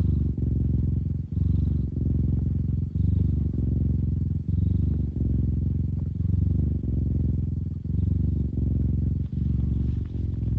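Domestic cat purring close to the microphone, deep and bass-heavy. The purr breaks briefly about every second or so as the cat switches between breathing in and out.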